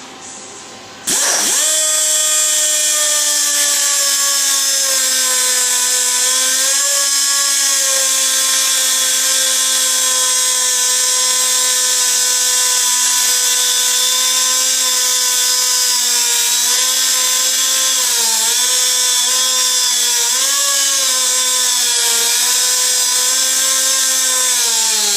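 Handheld electric power tool cutting pieces of steel bed-rail angle iron: it spins up about a second in, runs steadily with its pitch dipping briefly a few times under load, and winds down near the end.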